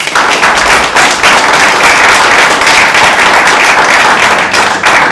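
A small seated audience applauding: dense clapping from many hands, starting abruptly.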